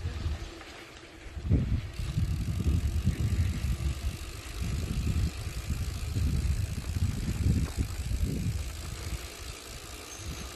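A mountain bike being ridden along a sandy dirt track: an uneven, gusty rumble of wind on the microphone mixed with the tyres rolling over the loose ground.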